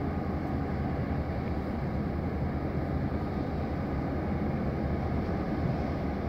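Large cargo ship's engine and propulsion running as a steady low rumble while it manoeuvres to berth.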